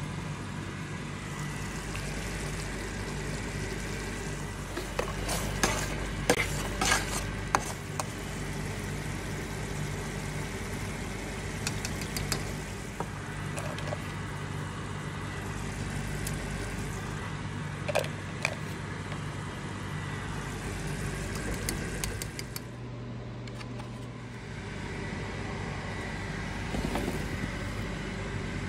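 Kitchen sounds: a steady hum and hiss under clinks and scrapes of a spoon against a jar and bowl, a cluster about six to eight seconds in and two more near eighteen seconds.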